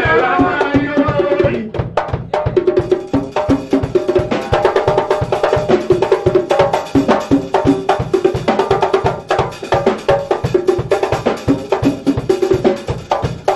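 Live church band playing a fast, steady groove: drum kit and hand drum keeping a dense beat over keyboard and bass guitar. A male voice sings into a microphone in the first second or so.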